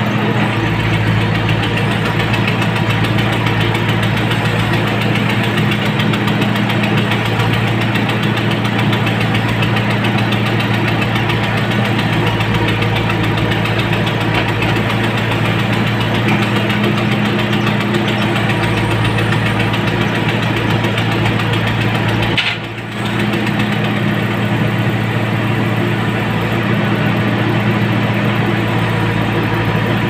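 JCB 3CX backhoe loader's diesel engine running steadily, heard from the operator's cab while the backhoe digs. The sound drops briefly about two-thirds of the way through.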